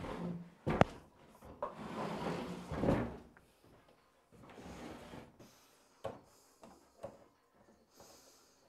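Wooden workbench being shoved across a concrete floor into place: a sharp wooden knock, then about two seconds of scraping, followed by a few lighter knocks.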